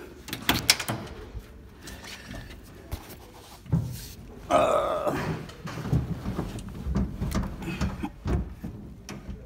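Pickup truck cab door being opened and someone climbing in: a few sharp latch clicks, a thump, then a short rough creak or scrape, the loudest sound, followed by lighter knocks and shuffling in the seat.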